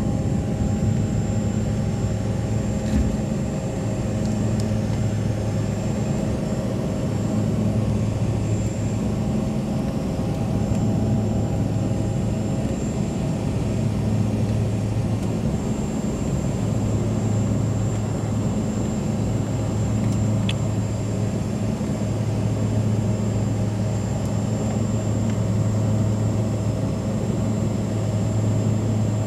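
Cabin noise of a Bombardier CRJ regional jet climbing out after takeoff: the steady drone of its twin turbofan engines and the airflow, with a low hum and a thin high whine held steady above it.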